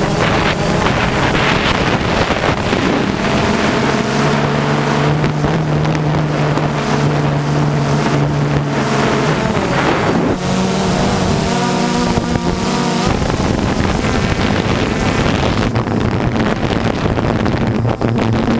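Motors and propellers of a small camera drone running steadily, their whine stepping to a new pitch several times as the craft manoeuvres, with wind buffeting the microphone.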